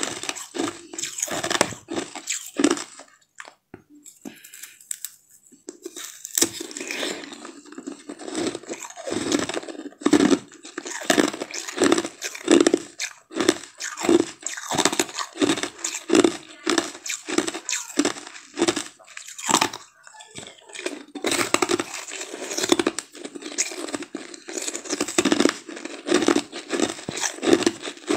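Close-up biting and chewing of a frozen ice sweet: repeated icy crunches in a steady chewing rhythm, about one to two a second. There is a quieter pause of a couple of seconds near the start.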